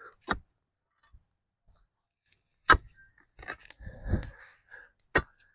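A digging tool chopping and prying into a post hole full of roots, making three sharp strikes. The loudest strike comes midway and is followed by a duller, heavier thud and scrape.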